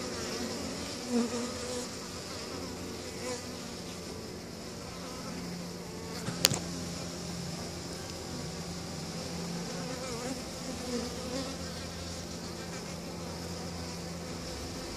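Honeybee colony buzzing, a steady hum of many bees. A single sharp click about six and a half seconds in.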